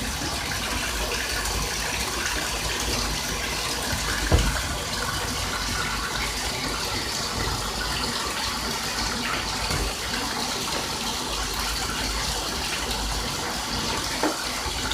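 Bathtub tap running, water gushing steadily into a filling tub, with a brief thump about four seconds in.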